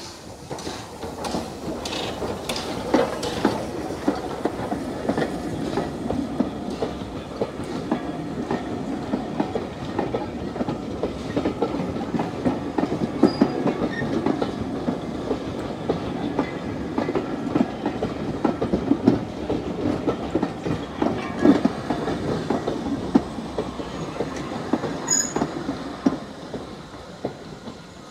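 Steam train of vintage coaches rolling past close by, with a steady rumble and the wheels clicking and clattering over the rail joints. It builds within the first second and fades near the end as the last coach draws away.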